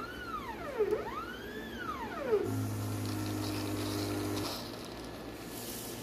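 ELISA plate washer running: a motor whines in two rising-and-falling sweeps as the needle manifold moves, then a pump hums steadily for about two seconds and stops, leaving a faint hiss.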